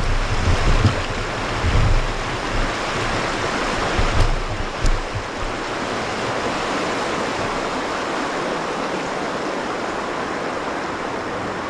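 Fast river water rushing over shoals in a steady, loud hiss, with a few low thumps in the first few seconds.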